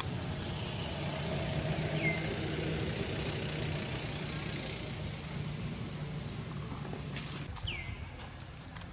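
A low, steady engine hum, with a few short, high chirps that fall in pitch, about two seconds in and near the end, and some light rustling clicks near the end.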